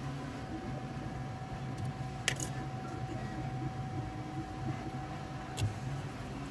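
Two sharp plastic clicks, about three seconds apart, as the hotend's small wire connector is handled and plugged into the print-head circuit board, over a steady low hum with a faint steady whine.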